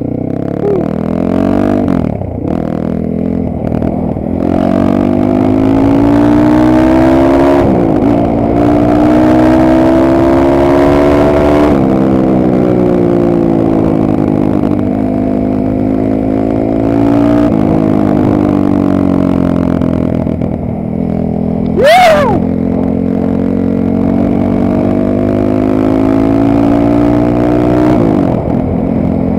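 Geon Dakar GNS300 enduro motorcycle's single-cylinder engine under way, its pitch climbing as it accelerates and dropping at each gear change, several times over. A short, sharp sound about 22 seconds in is the loudest moment.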